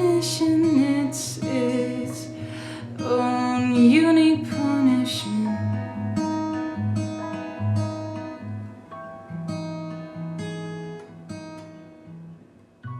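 A singer's last sung line over fingerpicked acoustic guitar; the voice stops about five seconds in and the guitar plays on alone, its notes thinning out and fading away.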